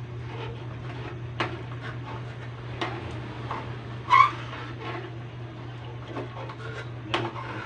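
Metal spatula scraping and knocking against an aluminium pan as soft glass noodles are pressed and cut in simmering broth: scattered taps and scrapes, with a sharper knock about four seconds in, over a steady low hum.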